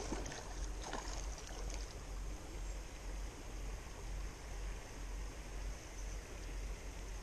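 Shallow rocky creek running over stones: a steady, even rush of water.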